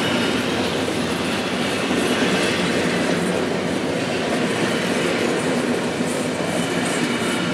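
Freight train of double-stack intermodal well cars rolling slowly past, a steady noise of wheels on rails with some clickety-clack from the cars.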